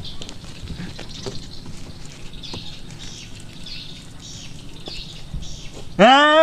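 Faint outdoor ambience with soft high chirps, likely birds, and scattered clicks; near the end a man abruptly breaks into loud wailing crying, his voice sliding up in pitch.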